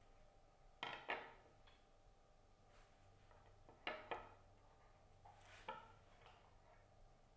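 Flower-arranging handling noise: three brief clusters of sharp clicks and snaps, the first two each a close pair, from floral scissors cutting stems and stems being set into the arrangement.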